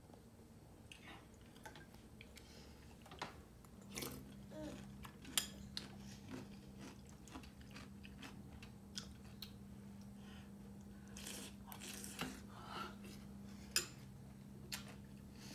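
A person eating close by: chewing with scattered small clicks from a spoon. A steady low hum comes in about four seconds in.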